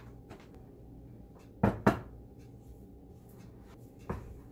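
Kitchenware knocking against a countertop as a stand mixer and a glass mixing bowl are handled: two sharp clunks about a quarter second apart, then a softer knock near the end.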